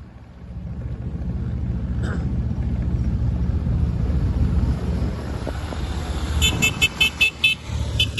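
A vehicle's engine running steadily, with its horn tooted in a quick run of about seven short, high-pitched beeps near the end and once more just after.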